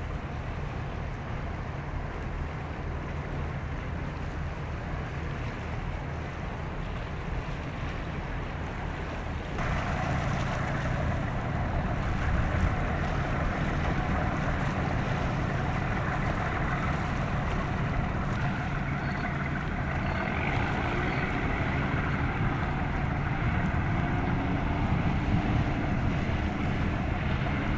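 Ship's engines running with a steady low hum, under wind and water noise. About ten seconds in, the sound grows louder and fuller.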